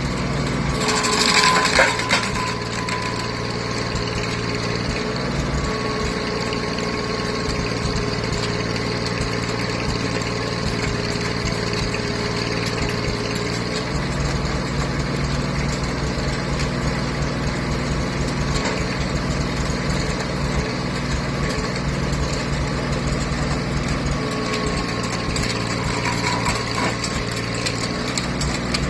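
An engine running steadily at a constant speed while stump work goes on, with a brief louder rasping noise about a second in.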